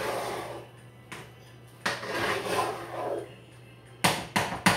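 Potatoes being mashed in a pot: a masher scrapes and squishes against the pot in stretches, then a quick run of sharp clanks comes near the end.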